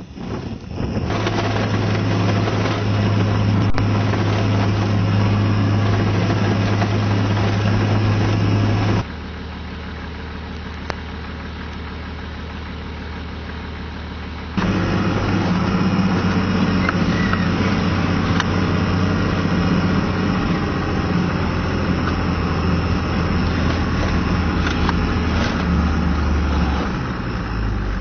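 A four-wheel-drive vehicle driving on a dirt track, heard from inside the cabin: a steady low engine drone with tyre and road rumble. Roughly in the middle it drops to a quieter hum for about five seconds, then the driving noise comes back at full level.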